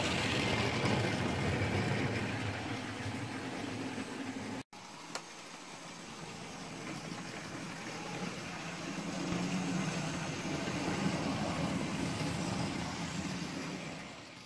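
OO gauge model diesel train running along the track: a steady motor whirr and the rolling of wheels and wagons on the rails. It cuts out for an instant about a third of the way in, comes back quieter, swells again as the train passes and fades out at the end.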